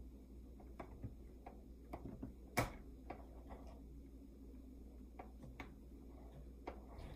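Scattered small clicks and taps from hands working the fabric and parts of a sewing machine that is not running, with one sharp click about two and a half seconds in.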